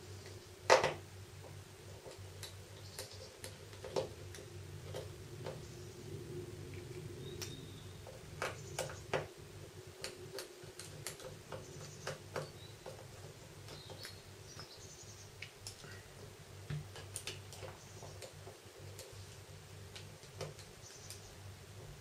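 Scattered small clicks and ticks of a precision Phillips screwdriver working the tiny screws out of a Samsung Galaxy S1's plastic bezel, with fingers handling the phone, over a faint steady hum. The sharpest click comes about a second in, with a run of clicks later on.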